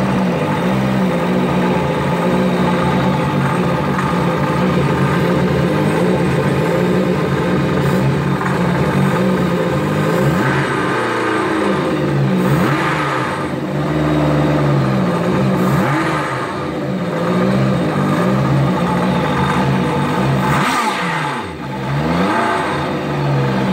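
Rebuilt Yamaha 1100 four-stroke engine running out of the boat on a stand on its first start. It runs steadily, and its revs rise and fall back a few times in the second half.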